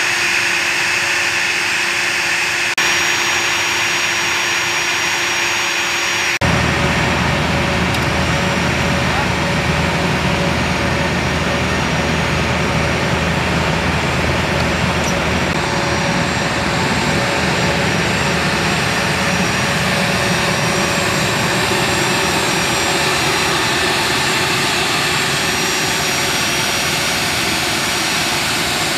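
Steady jet-engine noise on an airfield flight line, a loud drone with a high whine held over it. The sound changes abruptly twice early on, at about 3 and 6 seconds, and is fuller and lower after the second change.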